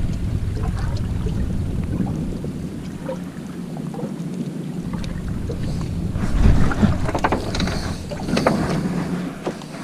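Fishing boat at sea: steady low rumble of the boat with wind on the microphone, and a low thump about six and a half seconds in.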